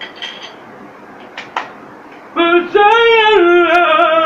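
A man's voice singing a short, high-pitched wordless phrase for about two seconds, a few held notes that step up and come back down, after a few short clicks.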